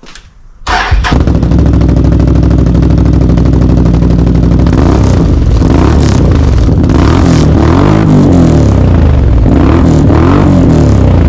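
Can-Am Outlander MAX 850's V-twin engine through a Dominator slip-on exhaust, starting suddenly about a second in and settling to a steady loud idle. It is blipped up and back down a few times in the second half.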